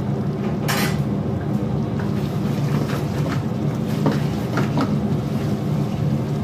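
A wooden spatula stirring thick meat gravy in a metal karahi, scraping and knocking against the pan several times, the sharpest knock about a second in. A steady low rumble runs underneath.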